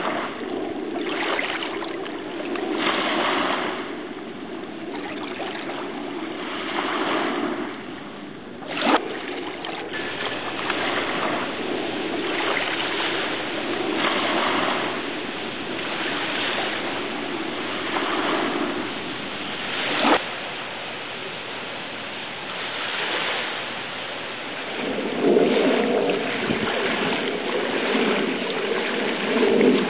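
Rushing water and wind noise that swells and fades every few seconds. Two sharp clicks come about nine and twenty seconds in, and the noise grows louder and deeper in the last few seconds.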